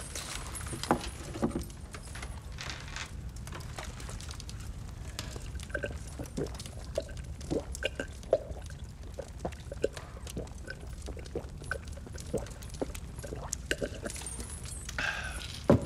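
A man drinking long and deeply from a mug: a string of soft gulps and swallows over a steady low room hum, with light clinks. A sharp knock comes near the end.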